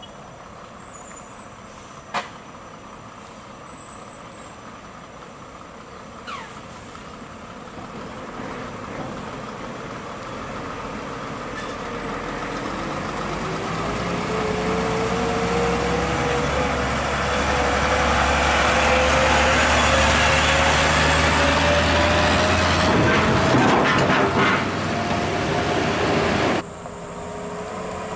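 Heavy truck engine under load, growing louder as it approaches, with a low drone and a whine that slowly rises in pitch. There is a sharp click about two seconds in, and the sound cuts off suddenly near the end.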